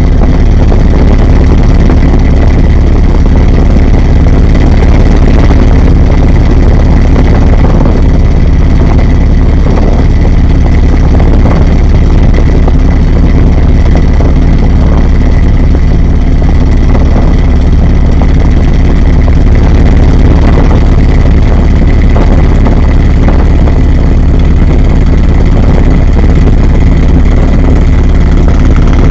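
Washing machine running, heard from inside the drum: a loud, steady mechanical rumble with a low hum, so loud the recording is overloaded.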